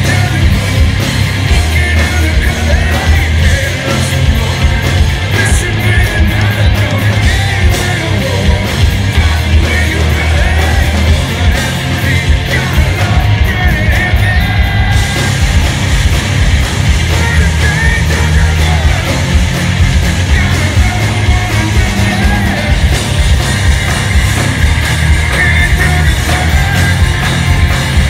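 Live hard rock band playing loud: distorted electric guitars, bass and drums, with a melodic line wavering above a heavy, steady low end.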